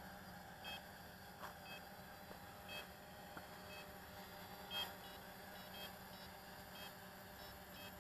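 Faint, short electronic beeps, each a brief two-tone chirp, repeating at irregular intervals over a low steady hum.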